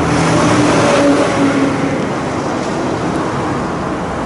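A car driving past on the road, engine and tyre noise swelling to its loudest about a second in and then easing off.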